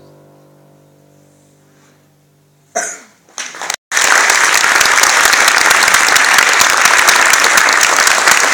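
The final chord of a grand piano dies away. After a couple of short loud sounds, the audience breaks into loud, sustained applause about four seconds in.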